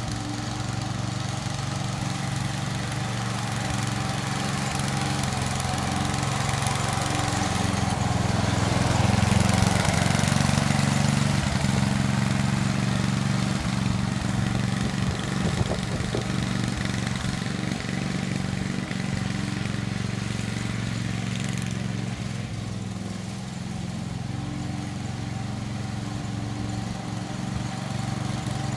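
Engine of a three-gang lawn mower rig running steadily. It grows louder about nine to eleven seconds in, then settles back.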